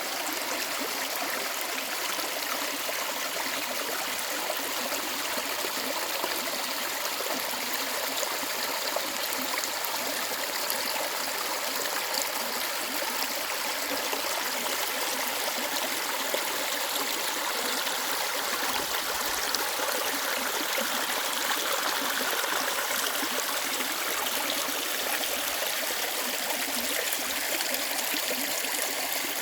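Mountain stream water flowing and splashing over rocks: a steady rush with a high hiss of small splashes and a gurgle lower down.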